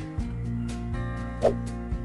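Background music with a steady beat, briefly dropping out just after the start, with one louder hit about one and a half seconds in.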